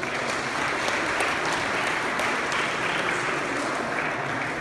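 Audience applauding: a steady patter of many hands clapping that starts abruptly and dies away near the end.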